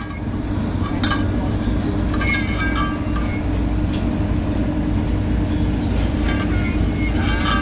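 Heavy road-construction machinery engine running steadily, a continuous low rumble with a constant hum, with a few light clinks over it.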